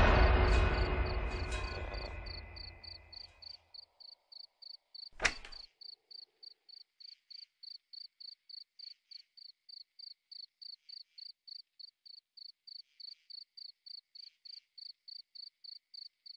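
Cricket chirping steadily, about three chirps a second, as night ambience. At the start a deep, sudden boom fades away over about four seconds, and a single sharp click comes about five seconds in.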